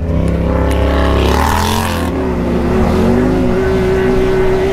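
Can-Am Maverick X3's turbocharged three-cylinder engine heard from the driver's seat, revving up and down for the first couple of seconds, then holding a steady speed with an even tone.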